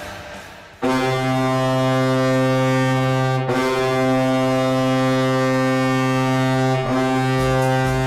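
Colorado Avalanche hockey arena goal horn blowing loudly: one deep, steady horn note that starts about a second in and breaks off for an instant twice, giving three long blasts back to back.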